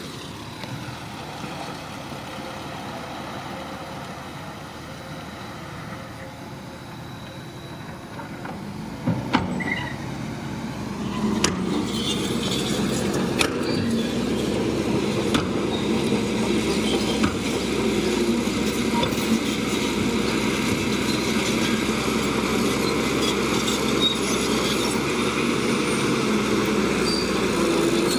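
Diesel engine of a Shantui crawler bulldozer running steadily. About ten seconds in it grows louder, as if working under load, with a few sharp metallic clanks.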